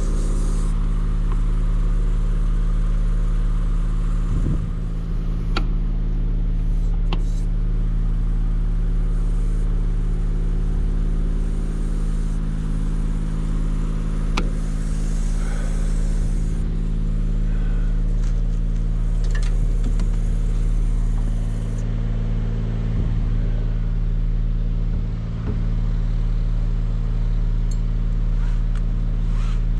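A large engine running steadily at constant speed, with a few sharp clicks or knocks over it.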